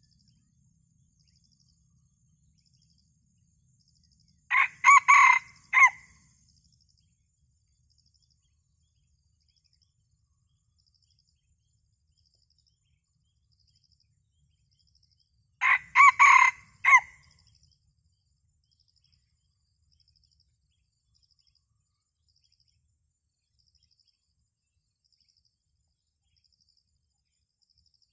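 Red junglefowl rooster crowing twice, about eleven seconds apart, each crow short and clipped, about a second and a half long and broken into several notes. It is the kind of crow that junglefowl trappers look for in a decoy bird. A faint, high ticking repeats about once a second between the crows.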